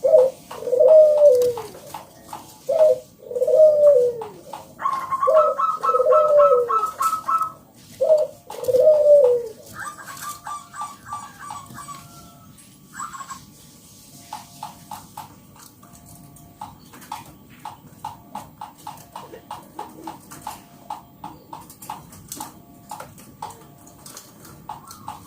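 Zebra dove (perkutut) song: a run of rhythmic, staccato coo phrases for the first ten seconds, with quick higher notes laid over them, then a quieter stretch of faint ticks until the cooing starts again near the end.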